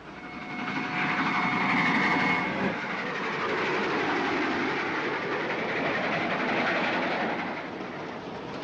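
Passenger train running on the rails, the carriages rumbling and clattering. It swells within the first second, is loudest around two seconds in, and eases off a little near the end.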